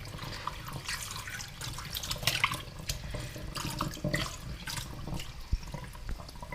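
Kitchen tap running into a small bowl of thinly sliced raw potato, with irregular splashing as fingers stir the slices under the stream. The slices are being rinsed until the starch washes out and the water runs clear.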